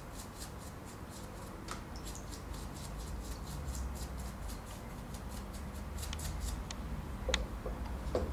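Small paintbrush scrubbing a winch gear part in a tray of degreaser, making quick, even scratchy bristle strokes, about four or five a second. There are two light clicks near the end as parts are handled.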